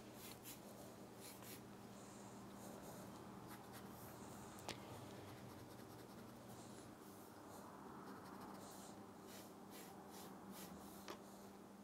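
Faint scratching of a wooden graphite pencil drawing strokes on paper, with a couple of light taps over a steady low hum.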